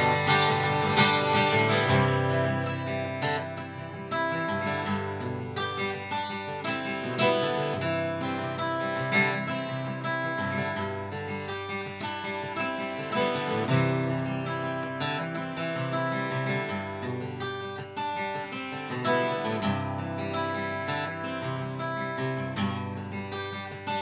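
Acoustic guitar played alone, strummed chords and picked notes, an instrumental break in the song with no singing.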